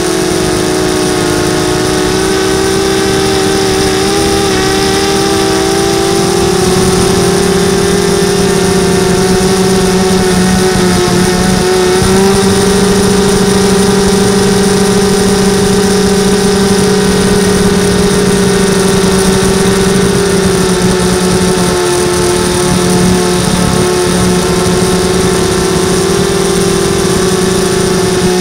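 Model aircraft's motor and propeller running steadily at a nearly constant pitch, with slight rises and dips, heard from the onboard camera over a steady rush of air.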